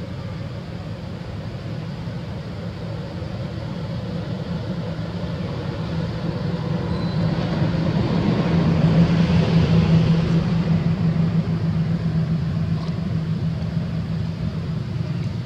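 A motor vehicle's engine hum that grows louder to a peak about two-thirds of the way through, then fades, like a vehicle passing by.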